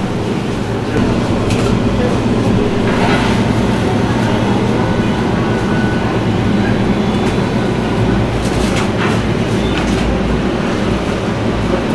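Steady low machine hum from refrigerated display cases, their compressor and fans running, with a few faint clicks.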